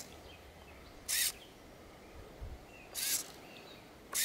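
Small servo whirring in three short bursts as it swings the drone's lens protection cover down and up.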